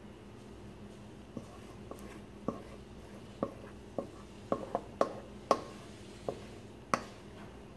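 A spatula and a stainless steel mixing bowl knocking and scraping against a metal loaf pan as banana bread batter is scraped out: about a dozen sharp, irregular clicks, bunched around the middle.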